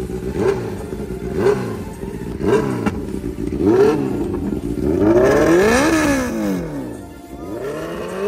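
Royal Enfield Bullet's single-cylinder engine revved through its twin exhaust, converted to a single pipe. A few short throttle blips come about a second apart, then a longer rev rises and falls around five to six seconds in.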